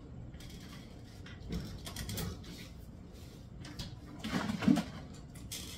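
Soft clicks and rustles as a plastic gallon milk jug is taken from a mini fridge and handled, then about four and a half seconds in a short, low two-part closed-mouth hum, "mm-mm".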